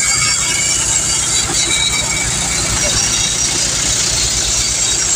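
Mahindra 265 tractor's three-cylinder diesel engine running steadily under load, driving a groundnut thresher that is running with green groundnut plants being fed into it.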